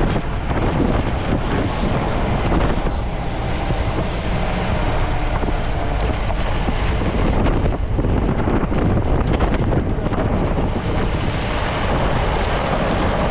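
Jeep driving on a rough off-road track: engine and road noise with jolts and rattles, and wind buffeting the microphone.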